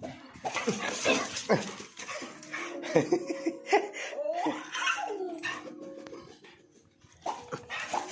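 Labrador-type dog vocalizing excitedly: a string of yelps and whines that slide up and down in pitch, with a brief pause near the end.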